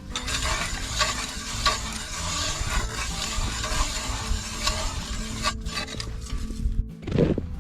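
Gritty scraping and crunching of ice with many small clicks, cutting off abruptly after about five and a half seconds. A brief low sound follows near the end.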